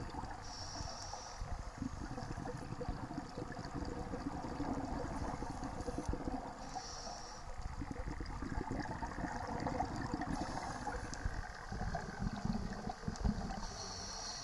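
Scuba regulator breathing heard underwater: a short hiss of inhalation three times, about six seconds apart, with bubbly, rumbling exhalation between them.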